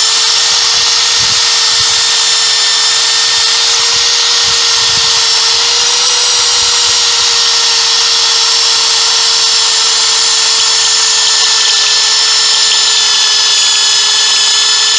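Electric power drill running continuously at a steady pitch, boring a hole through a thick steel bracket plate cut from a stock chain tensioner.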